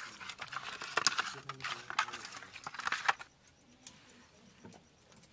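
A hand mixing salt and turmeric into cut climbing perch in a steel bowl: wet squelching with quick clicks and clinks against the metal. This goes on for about three seconds, then stops.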